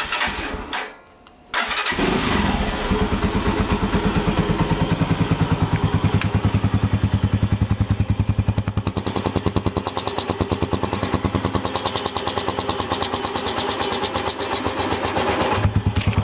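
Zanella RX150R motorcycle's 150 cc single-cylinder engine being started, catching about a second and a half in, then idling with a steady pulsing beat.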